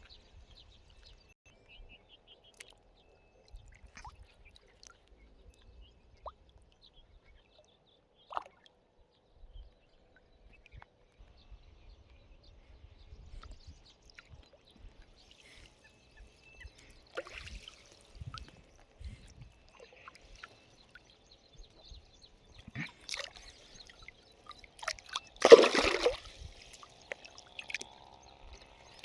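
Faint water sloshing and trickling with scattered small knocks, and one loud, brief burst of noise about 25 seconds in.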